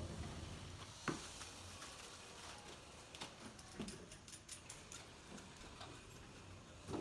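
Faint scattered clicks and light handling noises of pliers and small metal plumbing fittings being worked by hand, with a sharper click about a second in and another near the end.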